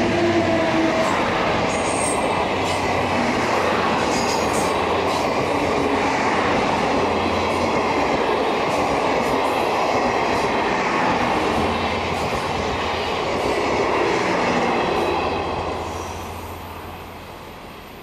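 A train passing over a level crossing: a steady rumble of wheels on rail with repeated clicks as the wheels cross the rail joints, fading away in the last few seconds as the train moves off.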